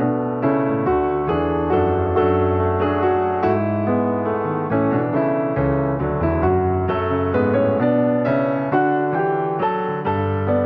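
Background piano music: notes struck about twice a second over sustained low bass notes.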